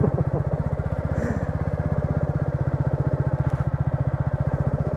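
Royal Enfield Meteor 350's single-cylinder engine running steadily at low revs, with an even, rapid beat of firing pulses.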